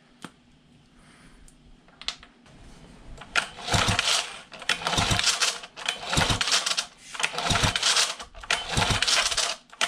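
The recoil starter of a 1978 Johnson 9.9 two-cylinder two-stroke outboard is pulled about five times in a row, starting about three seconds in. Each pull is a loud rope whir over the clatter of the engine being cranked, done to check for spark at the plug lead. A few light clicks come before the first pull.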